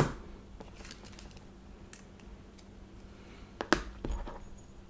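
Small hand tools and metal parts being handled and set down on a work mat: a sharp click at the start, a few light clicks, then two sharp clicks and a soft knock a little before the end.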